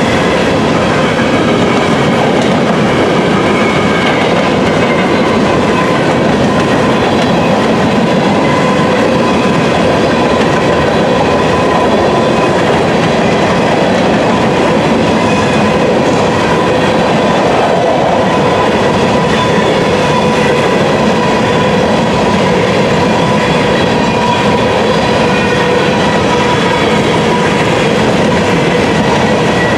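Covered hopper cars of a freight grain train rolling steadily past, their wheels rumbling and clattering on the rails, with a steady high tone held over the noise throughout.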